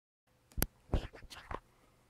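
A handful of short knocks and scuffs in quick succession, the loudest two near the start: a cat's body and paws bumping on a woven mat as it rolls and kicks at a small cloth cat-grass bag.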